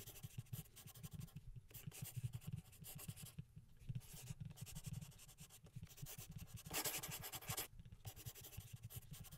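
A stylus writing on a tablet surface: faint scratching and light tapping in short, irregular strokes as handwritten equations are written.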